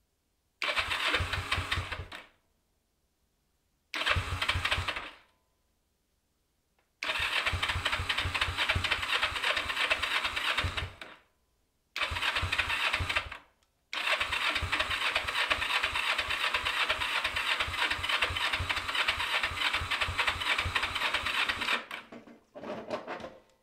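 Kawasaki EN450 (454 LTD) parallel-twin engine being turned over by its electric starter with the choke on, in six separate bursts of steady, evenly pulsed cranking. It does not catch: this is a hard cold start after the rusty carburetors were cleaned and rebuilt.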